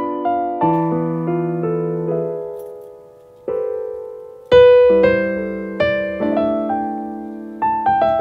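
Background music: piano chords and single notes, each struck and left to die away, with a quiet stretch about three seconds in before a loud chord picks it up again.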